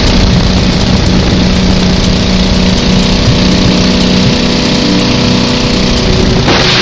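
Inboard engine of a high-performance boat with open chrome exhaust pipes, running steadily and loud at speed over the rush of wind and water.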